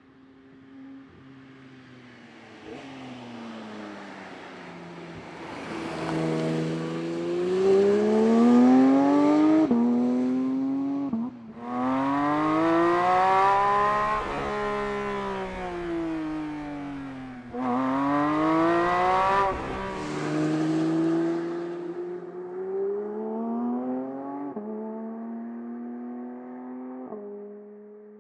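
Porsche 992 911 GT3 Touring's naturally aspirated 4.0-litre flat-six pulling hard through the revs. Its exhaust note climbs for several seconds, breaks sharply at a gear change, and rises and falls again before the throttle is cut at about twenty seconds. It then runs more gently, with two upshifts near the end.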